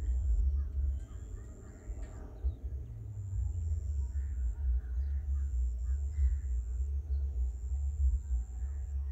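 Wind rumbling and buffeting on the microphone in an open field, with faint bird calls and a thin high tone that comes and goes every second or two.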